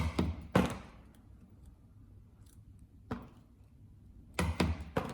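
Mallet striking a leather stitching chisel to punch sewing holes through leather: sharp knocks, two at the start, one about three seconds in, and a quick run of three near the end.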